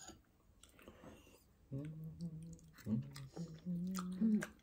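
A person chewing a mouthful of steamed oyster, then humming several closed-mouth "mmm" sounds of enjoyment from about two seconds in.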